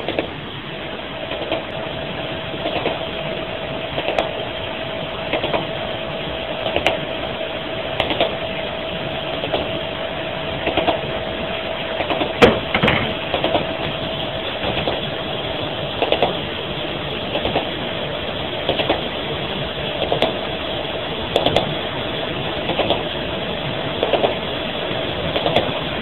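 Radio interference signal, the so-called HAARP sound: a steady hiss with a constant hum tone, broken by a short crackling burst about every 1.3 seconds in an even rhythm.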